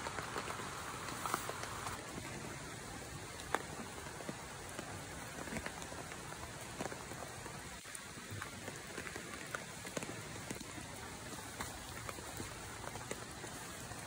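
Rain falling steadily, a constant hiss with individual drops ticking sharply now and then.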